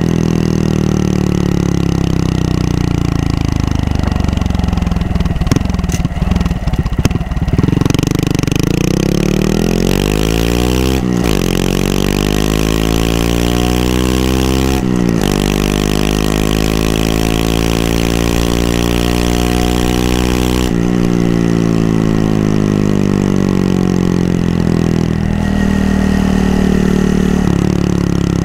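Honda Monkey 125's single-cylinder four-stroke engine under way. The revs fall and run rough for a moment, then climb as the bike accelerates through the gears, with two short breaks at the gear changes, before easing off again near the end.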